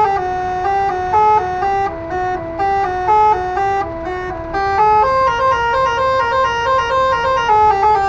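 Telolet horn module sounding a quick tune through six air-horn trumpets on a lorry, its notes stepping up and down several times a second. This is the module's mode B melody. The notes dip lower through the middle and jump higher about five seconds in.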